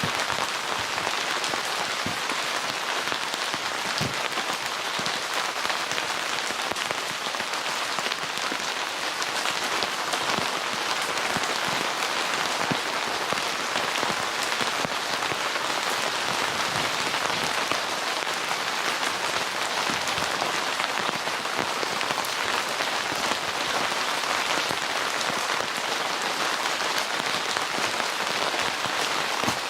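Steady rain from a rainstorm, with countless small drops ticking on a tent.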